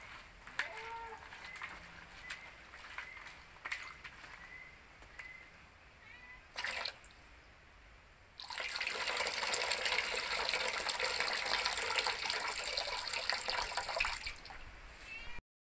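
Hands working shredded papaya in a plastic bowl, then a garden tap turned on about halfway through: water rushes from the tap into the bowl for about six seconds and is shut off near the end.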